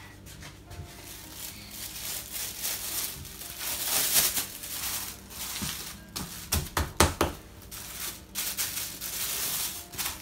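Thin plastic bag crinkling and rustling as soft play dough is pushed into it and pressed by hand, with a quick run of knocks on the table about two-thirds of the way through.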